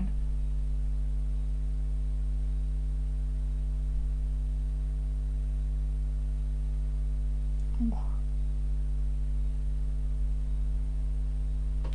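Steady electrical mains hum throughout, with one brief vocal sound about eight seconds in.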